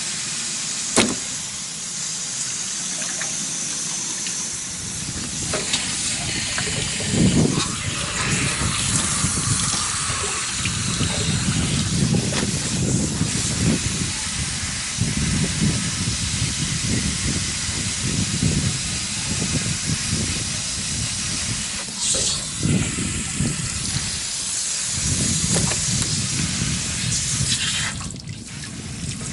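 Water hissing from a garden hose and splashing into a galvanized metal tub as gutted carp are rinsed under it. The hiss drops away near the end.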